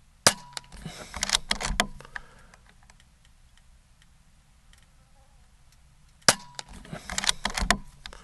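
Air Venturi Avenger .22 PCP air rifle, its regulator turned down to 2200 PSI, fired twice about six seconds apart. Each sharp shot is followed by a short run of clicks as the side lever is worked to chamber the next pellet.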